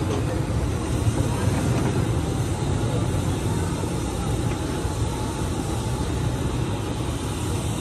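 Steady low rumble of street traffic and market noise, with faint voices in the background.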